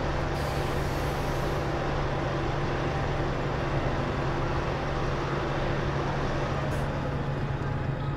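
Steady city street ambience: continuous traffic noise with the low, even hum of an idling engine underneath.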